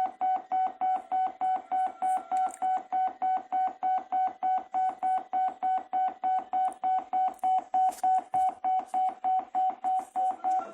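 Computer-generated beep tone from a C program sounding out typed text as Morse code: short beeps at one steady pitch, evenly spaced at about four a second.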